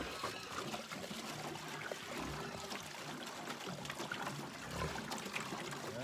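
Water pouring from a large plastic jug into a rubber feed pan as a steady trickle.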